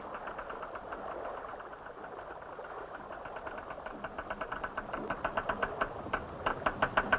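Deck winches on a pontoon running: a steady mechanical rattle with rapid, regular ticks, about eight a second, getting louder in the second half.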